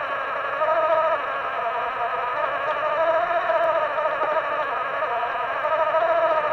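Small electric motor of a radio-controlled boat whining steadily, its pitch wavering up and down as the throttle changes.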